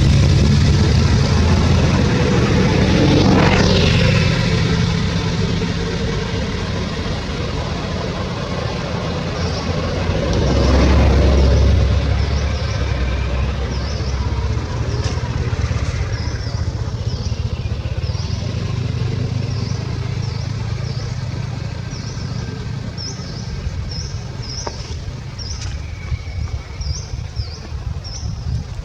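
Motor traffic passing, a low rumble that swells twice as vehicles go by, about 3 and 11 seconds in. From about halfway through, a quick run of short high chirps repeats over it.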